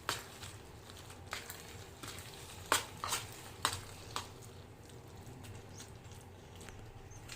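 A cooking utensil knocking and scraping against a pan while a sauce is stirred: about six sharp clicks in the first four seconds or so, the loudest near the middle, over a faint steady background.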